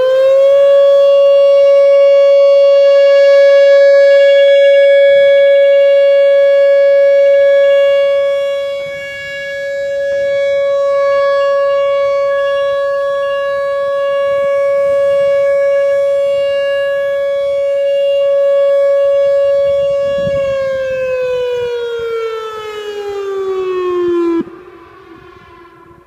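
Tornado warning siren sounding for a test. It climbs to one steady, loud tone and holds it for about twenty seconds, the loudness slowly dipping and swelling. It then winds down in pitch and cuts off sharply near the end, leaving a faint fading tail.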